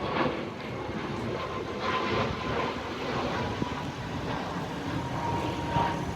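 An airliner flying past, the steady noise of its jet engines.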